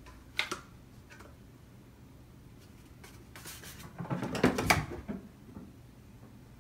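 A cat playing with a cardboard toilet paper tube on carpet: a short tap about half a second in, then scuffling and knocks as it bats and kicks the tube, loudest a little after four seconds in.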